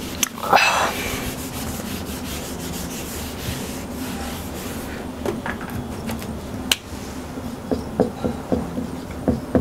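A whiteboard eraser rubbed back and forth across the board, wiping it clean, for about five seconds. Near the end, short separate strokes of a marker writing on the whiteboard.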